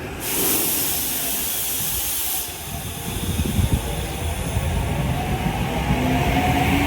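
A Tokyu electric commuter train: a loud hiss of compressed air starts just after the beginning and stops about two seconds later. Then the train begins to pull out, with a rising rumble and a motor whine that climbs in pitch.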